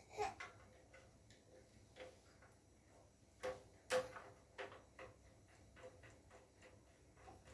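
Faint, irregular clicking and tapping of small hard parts being handled, with a sharp click just after the start and two louder clicks about three and a half and four seconds in.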